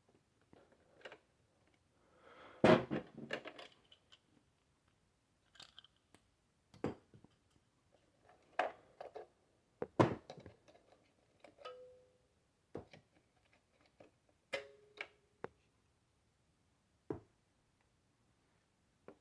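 Scattered clicks and knocks of hard plastic parts being handled while a Nerf N-Strike Tech Target toy is taken apart. There is a rattling flurry about three seconds in and two short squeaks about halfway through.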